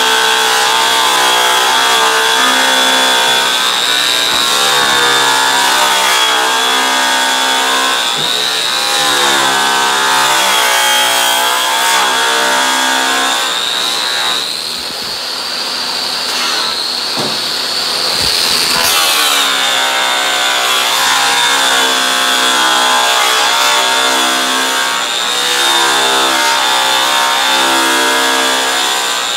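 Corded electric polisher spinning an orange/yellow airway buffing wheel loaded with heavy-cut compound against an aluminum snowmobile tunnel: the cutting stage of polishing. The motor's whine runs continuously and wavers in pitch, rising for a few seconds around the middle while the sound dips slightly in level.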